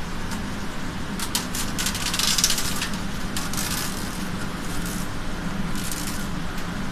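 Taker-in wire-mounting machine running with a steady hum as metallic card wire is wound onto the taker-in roller, with bursts of metallic clicking and rattling from the wire feed, about a second in and again near the end.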